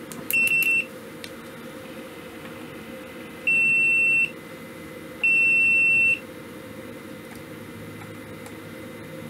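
A digital multimeter's continuity beeper gives a few quick beeps, then two longer beeps of just under a second each, all at the same high pitch. It is a check for short circuits on the supply of a freshly soldered DC-DC converter.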